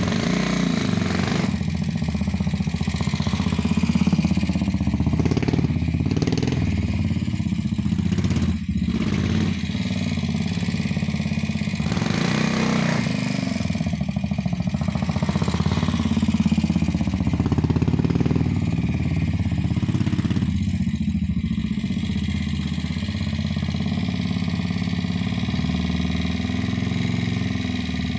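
Aermacchi 250cc Sprint motorcycle's single-cylinder four-stroke engine running steadily, ridden at low speed. The revs rise and fall a few times, with the biggest rises a few seconds in, around the middle, and a little after that.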